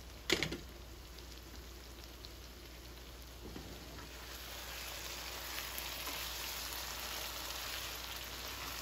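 Chicken pieces in spiced oil, butter and masala sizzling in a covered karai: a steady frying hiss that grows a little louder after about three and a half seconds. A short knock sounds just after the start.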